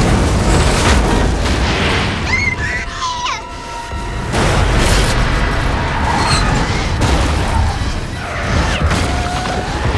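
Film sound design of a disaster scene: continuous deep rumbling and heavy explosive booms under a dramatic music score, easing briefly about three and a half seconds in before building again.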